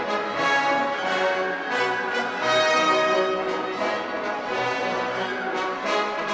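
Background orchestral music with prominent brass.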